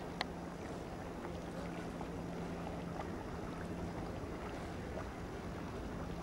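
Lakeside outdoor ambience: steady wind noise on the microphone with a faint, steady low hum. A single sharp click comes just after the start.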